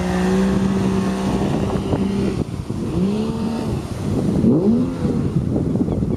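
Speedboat's Mercury outboard motor running at speed, a steady note that drops away about two and a half seconds in, then swoops up and down in pitch twice, with wind noise on the microphone and splashing water under it.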